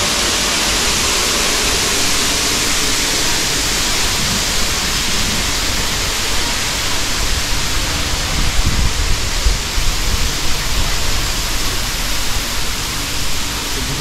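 Waterfall: a steady, loud rush of falling water. Some low, uneven buffeting comes in on the microphone in the second half.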